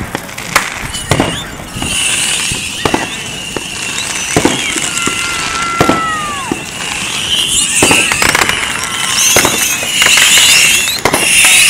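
Consumer fireworks going off: scattered bangs and pops at irregular intervals, with crackling, hissing sparks that build up in the second half. Around the middle there is one short whistle that drops in pitch.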